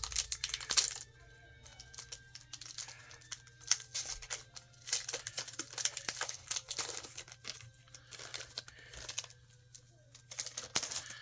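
Irregular crinkling and rustling of plastic comic-book bags as bagged comics are handled and sorted, over a steady low hum.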